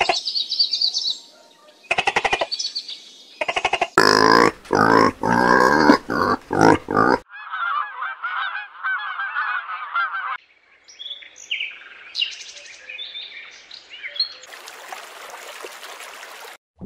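A run of short animal-call clips. Loud, harsh, repeated honking calls come first, about four seconds in, then a dense twittering chatter, scattered chirps, and a stretch of hiss near the end.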